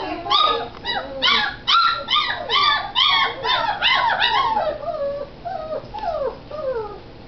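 Great Dane puppy crying in a quick run of short, high whimpering yelps, about two to three a second, easing after about five seconds into a few fainter falling whines.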